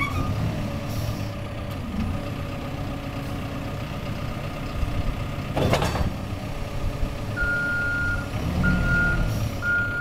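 Caterpillar 420E backhoe loader running as it moves, its diesel engine steady, with a sharp clank a little under six seconds in. From about seven seconds in its reversing alarm beeps steadily, about once a second, as the machine backs up.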